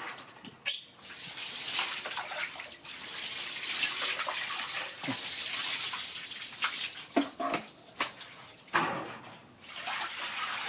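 Water poured from a plastic bowl over a baby monkey and splashing onto the wet floor, in several pours, with sharp splashes in between.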